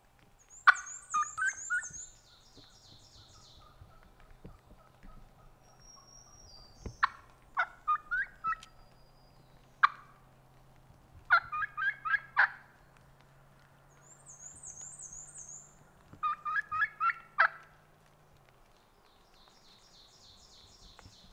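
Wild turkey gobbling four times, each gobble a rapid rattling run of notes, with a short single call near the middle. A small songbird trills faintly in the background twice.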